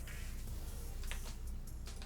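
Quiet background music with a few short clicks.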